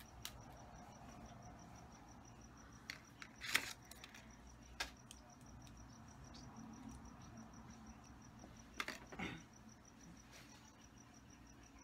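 Soft crinkles and clicks of fingers handling a piercing needle in its plastic sleeve, sharpest about three and a half seconds in and again near nine seconds. Under them runs a faint, high, evenly pulsed chirp.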